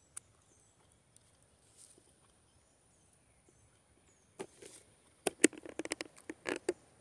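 Faint small-bird chirps, then about four seconds in a quick, irregular run of close crackles and clicks that stops shortly before the end.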